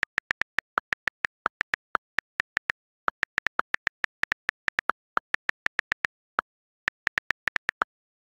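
iPhone on-screen keyboard click sounds as a message is typed: a quick, uneven run of short clicks, a few of them a little lower in pitch than the rest, with nothing audible between them.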